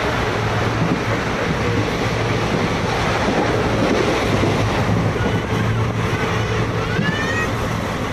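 Passenger train running at speed, heard from inside the coach by an open barred window: a steady loud rush of wind and rolling wheel noise with a low hum. A short rising tone sounds near the end.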